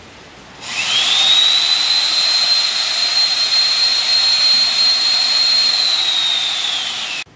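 Black Diamond portable lifter's electric winch motor running to lower the mast and top panel: a high steady whine over a hiss that comes on about a second in, rising in pitch as it gets up to speed, then sagging slightly just before it cuts off suddenly near the end.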